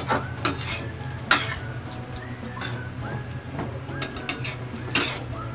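Metal spatula scraping and clanking against a steel wok while long beans and pork in adobo sauce are stirred. There are several sharp clanks, three in the first second and a half and three more about four to five seconds in.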